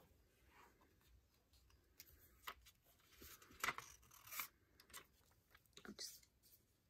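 Photobook pages being turned and handled: a few brief, faint paper rustles and crinkles, the loudest a little past the middle.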